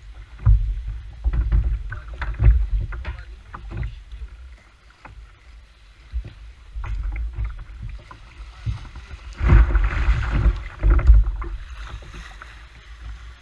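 Water sloshing and splashing around a fishing kayak's hull, with irregular low thumps of wind and knocks on the microphone. The splashing is loudest about nine to eleven seconds in.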